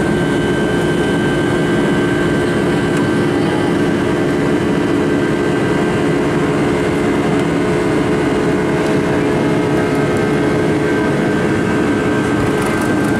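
Boeing 757-300 jet engines at low taxi power, heard inside the passenger cabin as a steady drone with a few constant whining tones over it.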